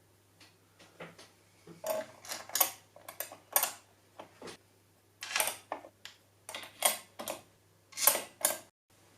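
Irregular clicks, taps and rattles of hard plastic and metal computer parts being handled, in small clusters that grow louder about two seconds in.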